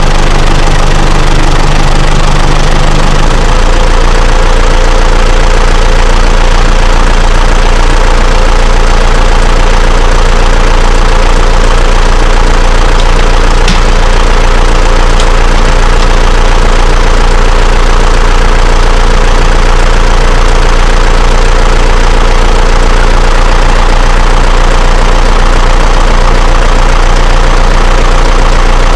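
John Deere 6110 tractor's diesel engine running steadily, just started on a new battery; its note shifts about three seconds in and then holds.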